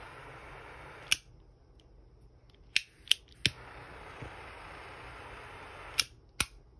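Quadruple-jet butane torch lighter: the jet flame hisses steadily, then cuts off with a sharp click about a second in. After three quick clicks the flame lights and hisses again, until two clicks near the end shut it off.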